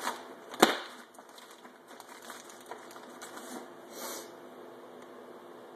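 Hand-handling noises as a new fuel filter is unpacked and fitted to a chainsaw's fuel line: a sharp knock about half a second in, then scattered light clicks and a brief rustle around four seconds in.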